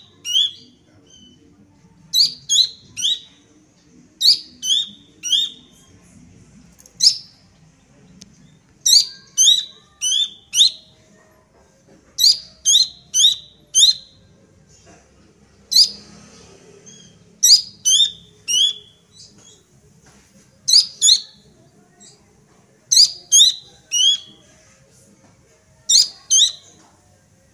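Juvenile Horsfield's babbler (pelanduk semak, cingcoho) calling: short groups of two to four sharp, high, steeply falling whistled notes, repeated every second or two.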